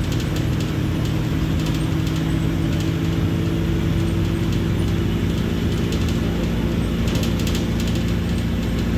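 Diesel engine of a Mercedes-Benz OF-1721 BlueTec 5 bus running at a steady speed, its hum unchanging, with a few light clicks or rattles about a second in and again around seven seconds.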